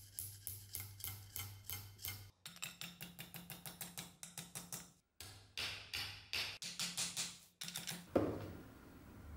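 Small hammer tapping lightly and rapidly on steel, peening over the end of a Mosin bayonet's tang where it pokes through the metal cap of the handle, about four or five taps a second in a few short runs. Near the end, a louder scraping stroke.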